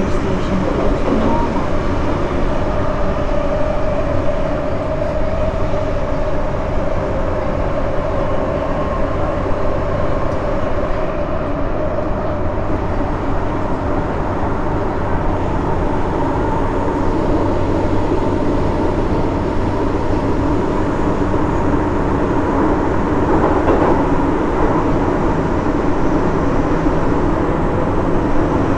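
MTR M-train electric multiple unit running at speed through a tunnel, heard from on board: a steady, loud rumble of wheels on rail with a few humming tones held over it.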